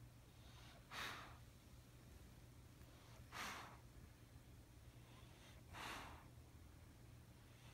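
Sleeping English bulldog breathing: three faint, breathy puffs about two and a half seconds apart, over a steady low hum.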